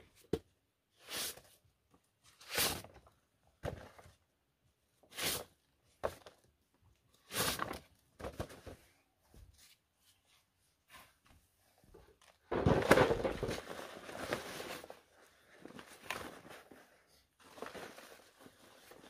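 A metal shovel scraping and scooping a soil and rice-husk mix on hard ground, in short scrapes a second or two apart, with a longer, louder scrape about two-thirds through; near the end soil is tipped from the shovel into a plastic pot.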